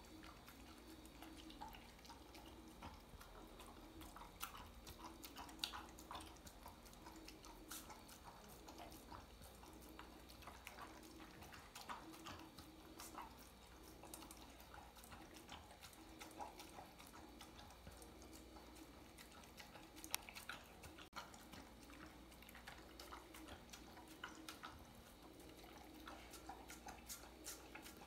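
A dog eating raw ground meat from a stainless steel bowl: faint wet smacking and lapping with many small clicks. A low steady hum runs underneath.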